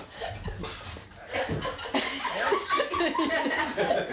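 People laughing and chuckling, the laughter breaking out about a second in.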